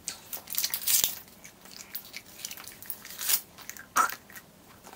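Close-up chewing of a mouthful of gum, irregular clicking and smacking sounds, with a short vocal sound about four seconds in.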